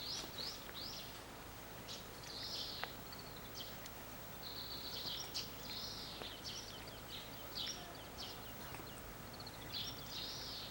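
Small birds chirping in short, high, rapidly repeated calls that come in clusters, over a faint steady hiss.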